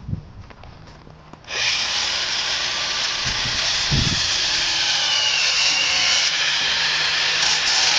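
A handheld power tool starts abruptly about a second and a half in and runs steadily, cutting a car grille to fit.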